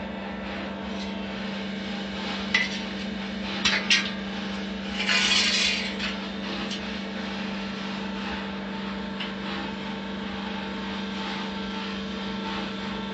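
Hydraulic angle-steel cutting machine running with a steady hum. A few sharp metal clanks come about 2.5 and 4 seconds in, and a brief rushing noise follows around 5 seconds.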